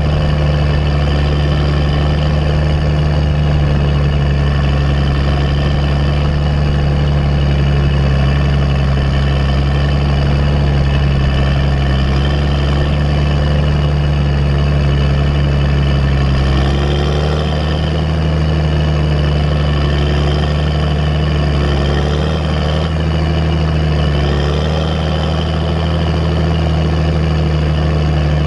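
Fendt Vario 920 tractor's straight-piped diesel engine running steadily under load, with a turbocharger whistle over the exhaust note. About two-thirds of the way through, the engine note rises slightly and then wavers up and down in small swells.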